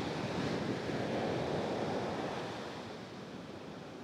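Small waves washing up onto a sandy beach, the surf swelling about a second in and easing off toward the end.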